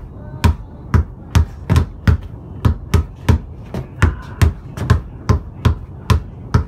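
Basketball dribbled hard and fast, a steady run of thumps about two to three a second.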